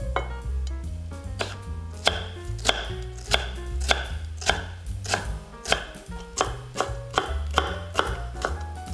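Knife chopping vegetables on a cutting board, with a steady stroke roughly every 0.6 seconds from about a second and a half in, over background music.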